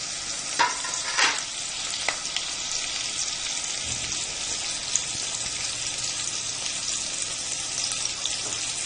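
Chopped onion and curry leaves sizzling in hot oil in a pan, a steady frying hiss with a few sharp crackles in the first second or so.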